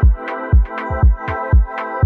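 Electronic background music with a steady kick-drum beat, about two beats a second, over sustained synth chords.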